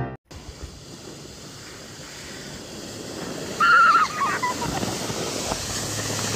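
A steady rushing hiss of wind and outdoor noise on the microphone, slowly growing louder, broken about three and a half seconds in by a short, loud, high wavering yelp.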